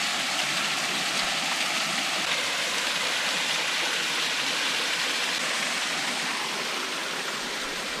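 Small mountain waterfall pouring down a rock face into a rock pool: a steady rush of falling water.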